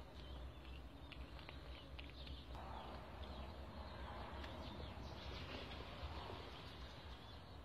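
Faint outdoor background of small birds chirping, many short high notes in quick succession, over a steady low rumble.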